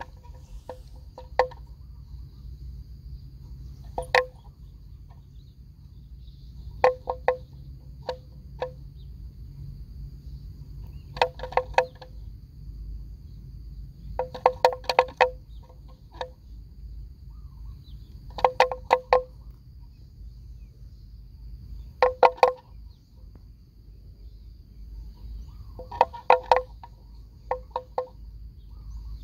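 Neck bell on a grazing water buffalo clanking in short, irregular clusters every few seconds as the animal moves its head while cropping grass, with a steady faint high whine underneath.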